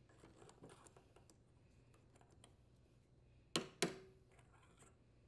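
Two sharp hammer taps on a copper pipe used as a driver to seat the retainer on a Mantis tiller's tine drive shaft, the first with a short metallic ring. Faint small clicks come before them as the pipe is fitted over the shaft.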